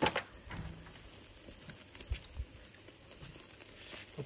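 Chicken legs and sausages sizzling over a charcoal kettle barbecue, a faint steady crackle and patter. A sharp click right at the start, and a few soft ticks and thuds.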